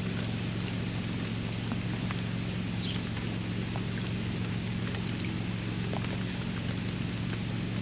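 Steady rain falling, with scattered drops ticking sharply, over a constant low hum.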